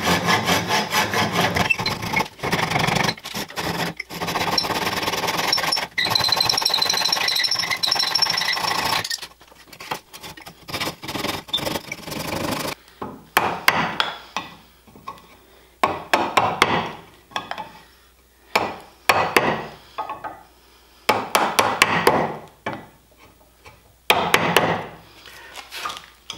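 Handsaw cutting the cheek of a wenge tenon in quick, continuous strokes for about the first half, then a chisel paring the wenge in separate short scraping strokes.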